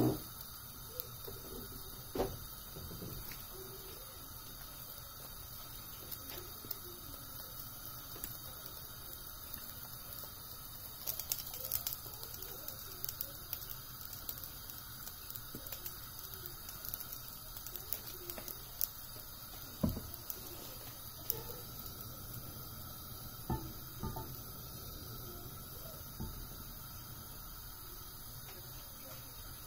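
Faint crackling and spitting from a nonstick frying pan heating on a gas burner: scattered small ticks and pops, with a few sharper ones, over a low steady hiss. The pops come thicker around the middle, when oil is poured into the pan.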